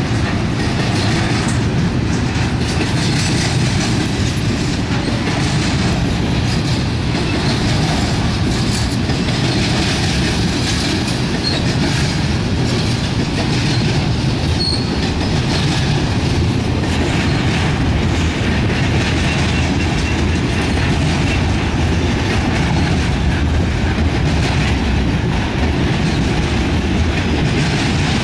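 Intermodal freight train cars carrying truck trailers and double-stacked containers rolling past: a steady, loud rumble and clatter of steel wheels on rail.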